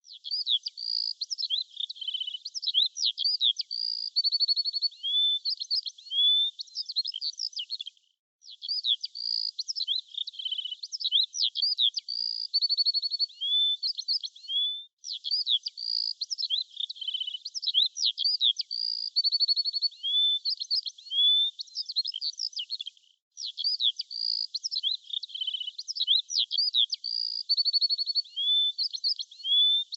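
Recorded birdsong of high-pitched chirps, whistles and fast trills, the same stretch of song looping about every seven to eight seconds with short breaks between repeats.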